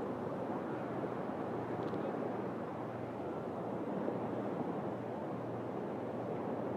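Sea waves washing on the shore, a steady rushing noise.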